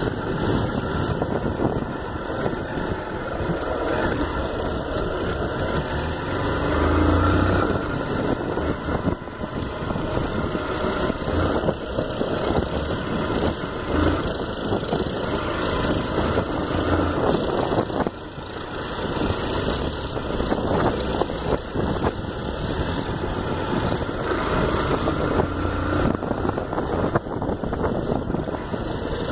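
Motorcycle engine running at low speed on a sandy dirt track, heard from the rider's seat, mixed with a steady rush of wind and road noise; the sound dips briefly about eighteen seconds in.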